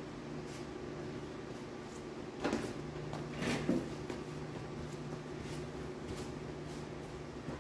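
A few short knocks and clunks over a steady low hum, the loudest about two and a half and three and a half seconds in.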